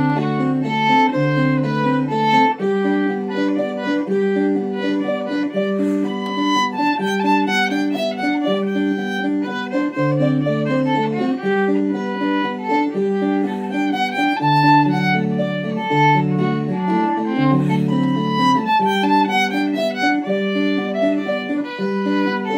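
Violin playing an Irish traditional dance tune, a lively bowed melody over a backing accompaniment of regular plucked chords and low bass notes.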